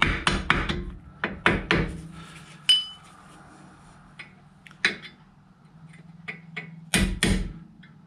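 Small hammer tapping a punch to drive a brake caliper's steel spring clip into its holes: a dozen or so sharp metallic taps in irregular clusters, one of which rings briefly about three seconds in.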